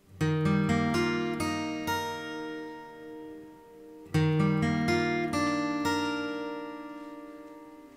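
Relaxing background music on plucked acoustic guitar: two phrases of ringing notes that slowly fade, the second starting about four seconds in.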